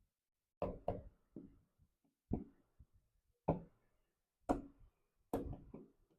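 Toys being handled and set down: a series of sharp taps and knocks, about seven of them, irregularly spaced.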